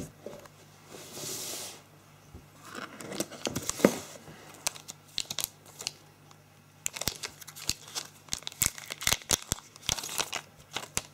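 Packaging being handled: a cardboard box's inner tray sliding out with a soft hiss, then a mobile phone's clear plastic film wrap crinkling and being peeled off in a string of sharp crackles through the second half.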